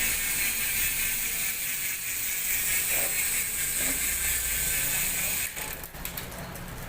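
Hope Pro Evo 2 rear hub's freshly overhauled four-pawl freehub buzzing in a fast, continuous ratchet as the wheel freewheels. A little over five seconds in it drops in level and breaks into separate clicks.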